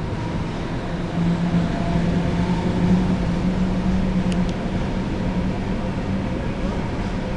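EETC 1251, an NS Class 1200 electric locomotive, running with a steady rumble and a low hum that strengthens and rises slightly in pitch about a second in, then holds.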